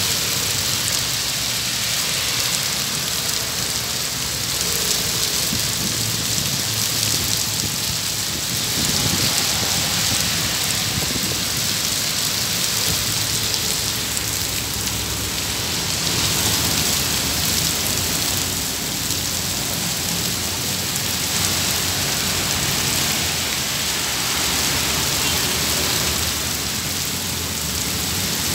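Heavy tropical downpour: rain pouring down hard, a dense, steady hiss of water hitting the ground and the metal fence.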